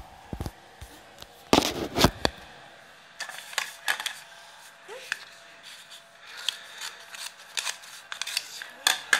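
Knocks and bumps of the phone being handled and set down, then scattered short clicks and crinkling as a plastic blind-bag packet is handled and snipped open with scissors.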